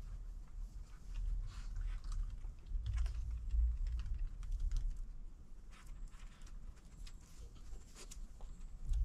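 Dogs' claws clicking on wooden deck boards as they walk and nose about for food: scattered light ticks and taps over a low rumble.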